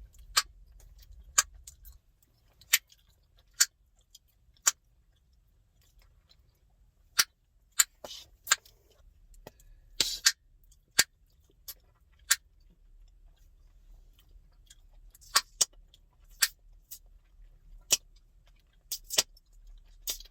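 Chewing gum being cracked in the mouth: a string of sharp snapping pops, about twenty, irregularly spaced, with a brief wet smacking noise around a couple of them.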